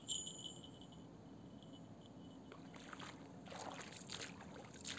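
Faint river water trickling and lapping at the bank. A thin high tone sounds for the first two seconds or so, and a few light clicks and rustles come in the second half.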